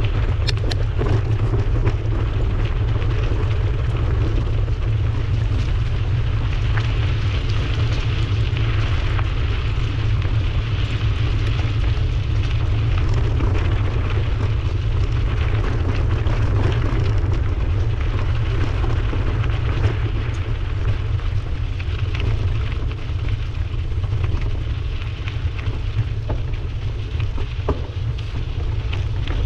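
Steady wind rumble buffeting the microphone of a moving bicycle, with scattered small clicks.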